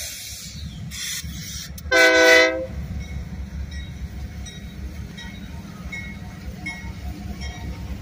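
Diesel locomotive horn sounding one short, loud blast about two seconds in, over the steady low rumble of an approaching Union Pacific freight train's diesel locomotives.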